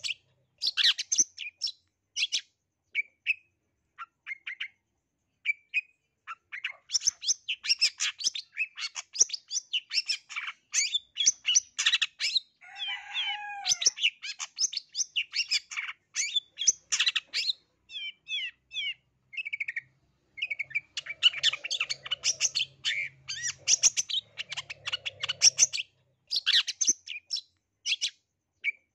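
Caged long-tailed shrike (cendet) of the black-headed 'blangkon' form singing a fast, chattering song of quick chirps and scratchy notes, packed with mimicked phrases. The runs come in bursts with short pauses, and one lower, gliding warble comes near the middle.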